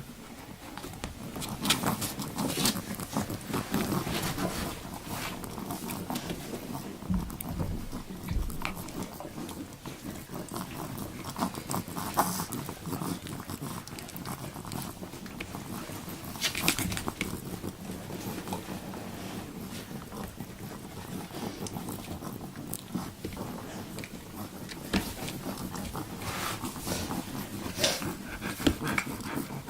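Three-week-old Siberian Husky puppies making small dog sounds, with scattered short, sharp noises throughout.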